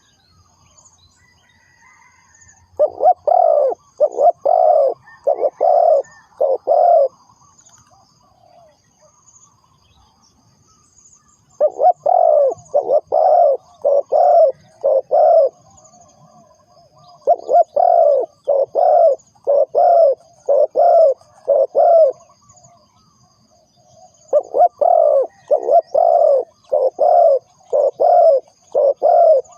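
Spotted dove cooing in four bouts of rapidly repeated short notes, with pauses of a few seconds between bouts. A faint high chirping carries on underneath.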